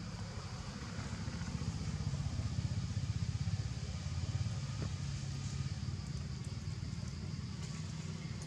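Motorcycle engine passing by, growing louder to a peak midway and then fading.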